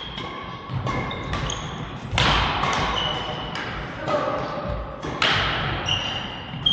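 Badminton rackets striking the shuttlecock in a rally: a quick string of sharp hits that echo around a large hall, with short high squeaks of court shoes in between.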